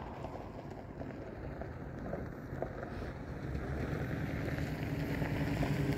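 RC model airplane's motor drone, growing steadily louder as the plane approaches, over some wind noise on the microphone.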